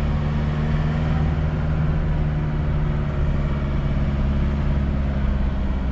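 Vehicle engine running steadily with tyre and road noise while driving, heard from inside the cab.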